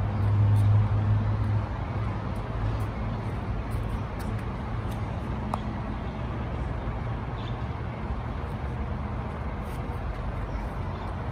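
Scania fire engine's diesel engine idling: a steady low hum, strongest in the first second and a half and then settling lower, over a steady wash of engine and street noise.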